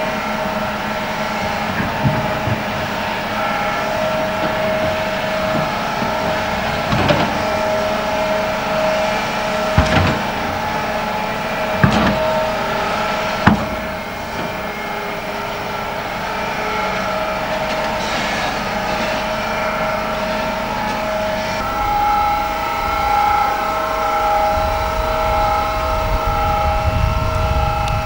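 Large hydraulic crawler excavator running steadily, its engine and hydraulics giving a constant whine, with four sharp knocks as the bucket works the dirt slope. In the last few seconds the machine sound changes and a deeper rumble comes in.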